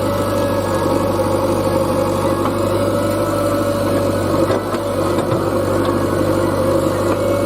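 Heavy diesel engine running steadily at a constant speed, with a short knock about four and a half seconds in.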